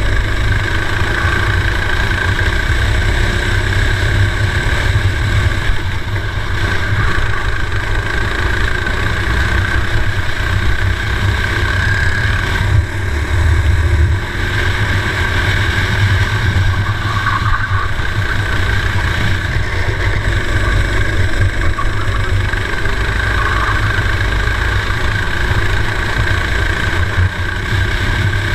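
Racing kart engine running at race speed, heard onboard, fairly steady with a brief dip in loudness about halfway through, with wind rumble on the camera microphone.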